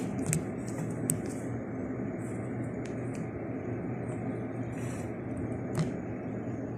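Steady low background hum with a few faint light clicks, the last a little sharper near the end.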